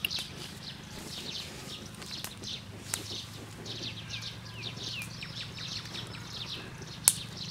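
Small birds chirping quickly and without pause, in rows of short, falling notes over a steady low hum. A few sharp clicks cut in, the loudest shortly before the end.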